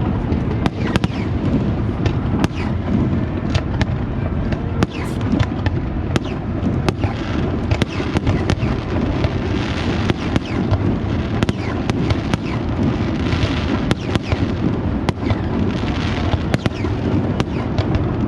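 Zambelli fireworks display: a fast, continuous run of sharp bangs and crackles over a steady low rumble of booms.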